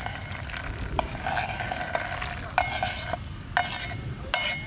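Perforated steel ladle scraping and knocking on a wooden chopping board as green peas are pushed off it into a kadai of water, with several sharp clinks and the sound of peas dropping into the water.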